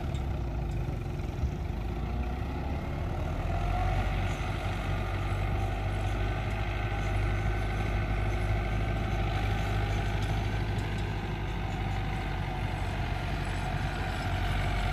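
Diesel engine of an MTZ Belarus tractor running steadily as it pulls a heavily loaded cassava trailer, a low hum that grows slightly louder about three to four seconds in.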